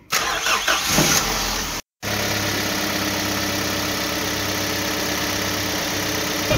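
Vehicle engine sound effect: an engine starting, a brief dropout about two seconds in, then a steady idle.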